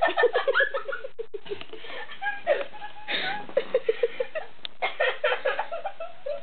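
Laughter in quick repeated pulses, with a burst at the start and another about three and a half seconds in, and shorter bits of laughing between them.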